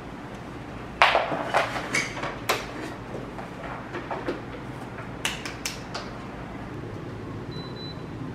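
A run of sharp knocks and clatters, loudest about a second in and again a few seconds later, over a steady low hum, with a short high tone near the end.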